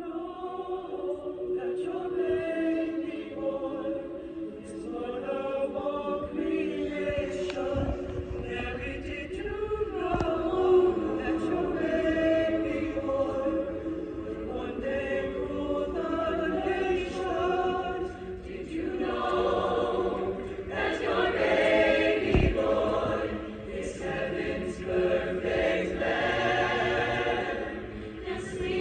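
A choir singing, with sustained chords that swell and fade.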